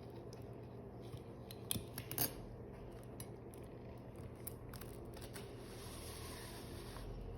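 Light metal clicks of surgical instruments, a needle holder and forceps, being handled while suturing, a few separate clicks over a faint steady hum.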